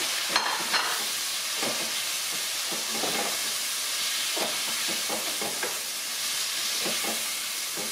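Shrimp frying in a pan of hot olive oil with garlic and paprika: a steady sizzle, with a couple of sharp knocks near the start as the shrimp go in and are stirred.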